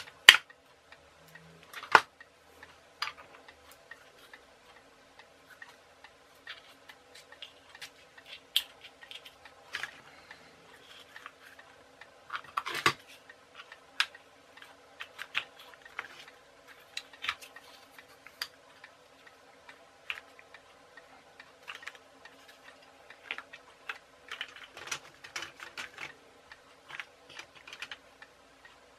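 Irregular light clicks and taps of small plastic and cardboard parts being handled and fitted by hand: milk-bottle-top wheels on skewer axles of a home-made rubber band train chassis. A few sharper clicks stand out, the sharpest right at the start. A faint steady hum runs underneath.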